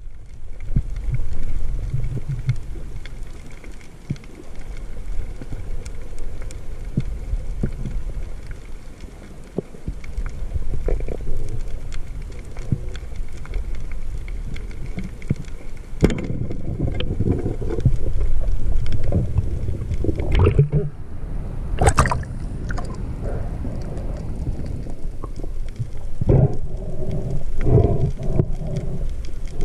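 Muffled water sloshing and gurgling around the camera on a spearfishing dive, mostly low-pitched, with scattered clicks and knocks. It grows louder about halfway through, with a few sharp splashy bursts.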